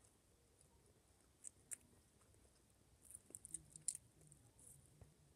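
Faint chewing of a mouthful of Mexican rice, with small sharp mouth clicks: two about one and a half seconds in, then a quick run of them about three seconds in.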